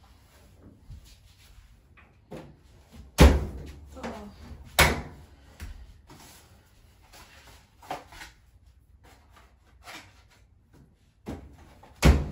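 Knocks and thumps of laundry work at a top-loading washer and a dryer, with two sharp knocks about three and five seconds in, another near the end, and lighter clicks and rustling between them.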